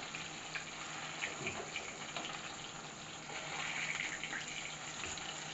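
Chicken wings shallow-frying in hot oil in a kadai: a steady sizzle with scattered small crackles. A slotted steel spatula scrapes and taps now and then as the pieces are turned.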